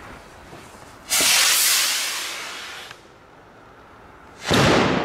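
A Zink 'long-hanging gold' firework rocket lifting off with a loud hiss about a second in that fades over about two seconds, then the bang of its burst near the end.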